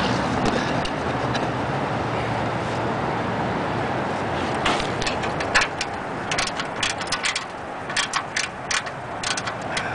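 Ratcheting wrench clicking in quick irregular runs as it is worked back and forth on a seat bolt's nut, starting about five seconds in. Under it is a steady rush of background noise.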